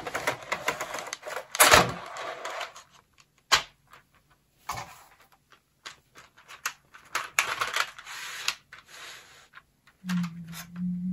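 A clear plastic keycap case being opened and handled: irregular plastic clicks and clacks, the lid and trays knocking together, and keycaps rattling with short rustles. A brief low hum comes near the end.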